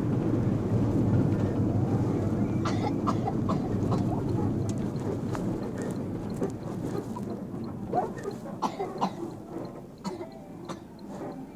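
Low, steady rumble of a bus cabin on the move, easing off about halfway through, with scattered short clicks and knocks in the quieter second half.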